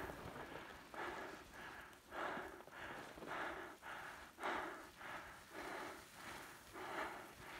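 Quick, heavy breathing close to the microphone, a rushing breath roughly every half second to second.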